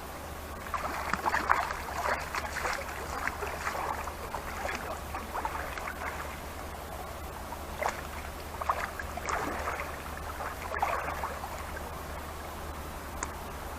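Water splashing and sloshing in irregular bursts for about ten seconds over a steady low rumble, easing off near the end.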